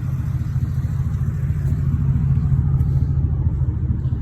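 Chevrolet Silverado High Country's 6.2-litre V8 idling through Flowmaster mufflers: a steady low rumble.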